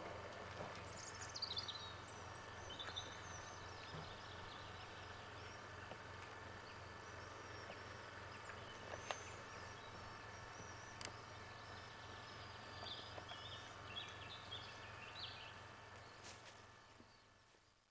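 Outdoor ambience with small birds chirping a few times, early on and again in a cluster near the end, over a steady hum and hiss. Two sharp ticks come near the middle, and the sound fades out at the very end.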